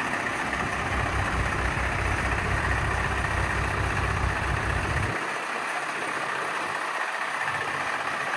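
PACCAR MX-11 diesel engine of a Peterbilt 579 day cab idling steadily. The deepest low rumble drops out about five seconds in, leaving a steady mid-pitched hum.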